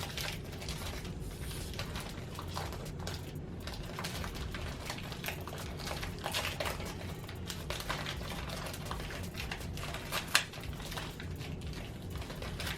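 Plastic snack packaging being handled, a continual run of small crinkles and clicks with one sharper crackle about ten seconds in.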